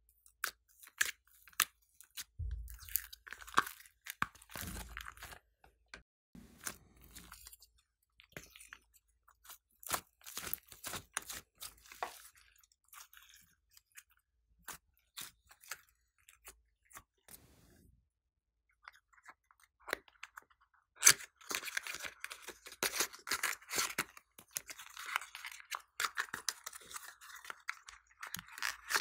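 Hands pulling, stretching and folding a sticky slime, making irregular wet clicks and crackles. The crackling thickens into a dense run in the last third.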